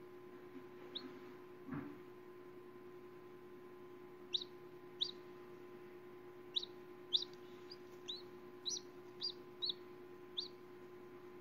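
Newly hatching chick peeping from inside a pipped chicken egg: short, high peeps that fall in pitch, one about a second in, then a run of about ten from about four seconds in. A soft knock sounds just before two seconds, over a steady low hum.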